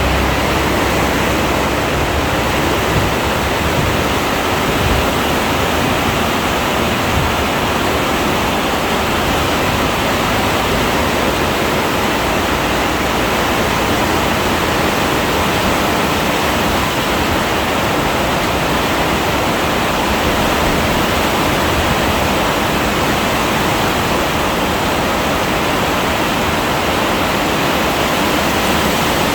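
Heavy rain falling in a dense, steady hiss.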